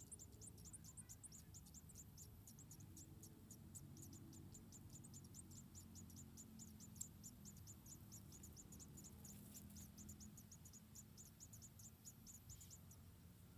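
Faint cricket chirping, a steady train of short high-pitched chirps at about five a second, breaking off shortly before the end.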